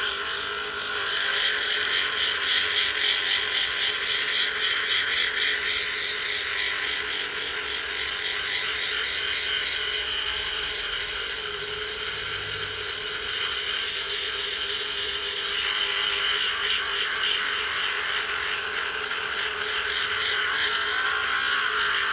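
Dremel rotary tool with a 120-grit sanding attachment grinding steadily against an abalone shell, the motor whining under the gritty scrape as the outer layer is worn down to the mother of pearl.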